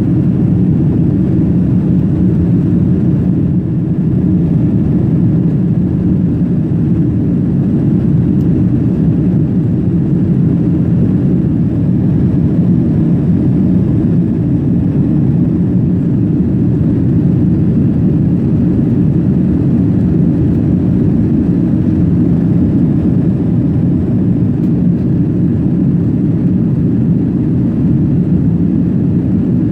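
Steady low rumble of an airliner cabin in flight, an even roar of engine and air noise.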